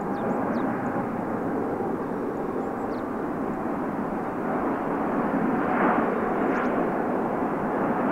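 Boeing 787-9 jet engines heard as a steady rushing noise that slowly grows louder as the plane approaches.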